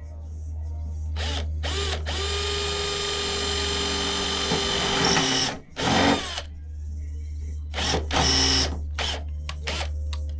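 Power drill boring a pilot hole through a car's sheet-metal body. It comes in a few short trigger pulls, then one long run of about three and a half seconds with a steady whine, then more short bursts near the end.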